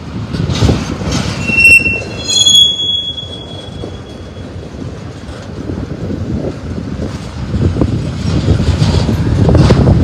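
Double-stack intermodal freight train's well cars rolling past close by: a steady rumble of steel wheels on rail. About two seconds in come two short high-pitched wheel squeals, the second one fading out a couple of seconds later.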